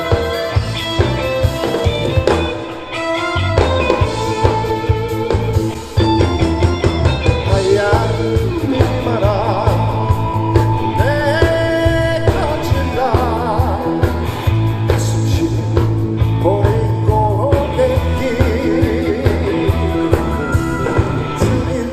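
Live rock band with electric guitars, bass guitar and drums playing over amplified speakers; after an instrumental opening the full band comes in about six seconds in, and a male singer's voice joins about eight seconds in.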